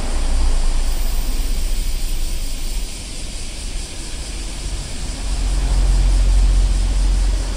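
A steady low rumble with hiss, no distinct pitch or beat, dipping a little about three seconds in and swelling louder from about five seconds in.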